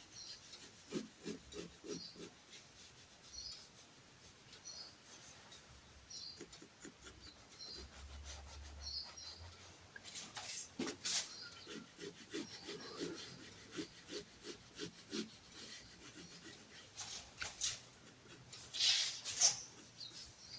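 Pencil drawing on paper: quiet rubbing strokes and light scratches as lines are drawn, with small taps in between and a louder scrape near the end.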